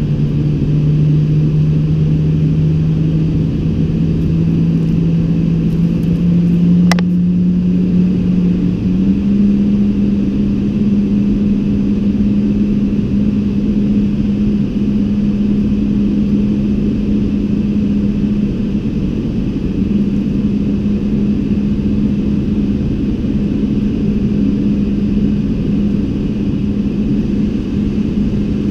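Boeing 777-200LR's GE90 jet engine heard from inside the cabin: a steady low rumble with a hum that climbs in pitch over the first nine seconds, then holds steady as the engine settles. A single sharp click about seven seconds in.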